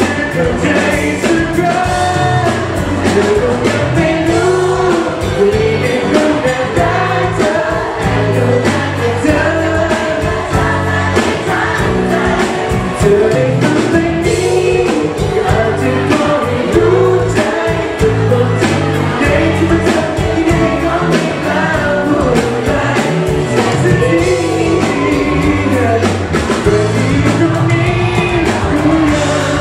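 A Thai pop song performed live by a band, with the lead singer singing over a steady beat.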